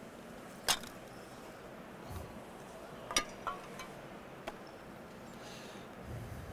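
Faint steady hiss with a few isolated sharp clicks and taps from objects being handled on a tabletop. Near the end, low rustling handling begins as hands reach for the shrink-wrapped box.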